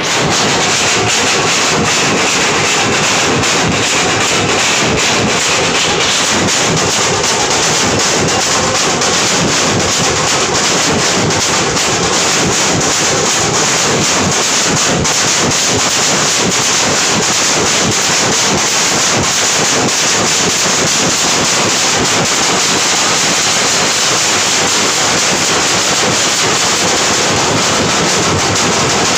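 A troupe of drummers beating large steel-shelled barrel drums with sticks in a dense, unbroken rhythm, loud and close, the strokes running together into a wall of sound.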